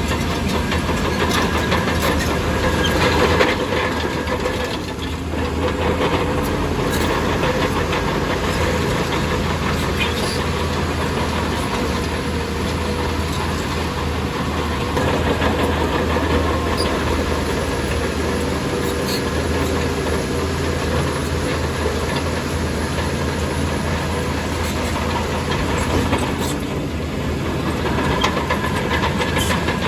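Heavy diesel earthmoving machinery running steadily under load: a low engine drone with constant metallic rattle and clatter, easing briefly about five seconds in.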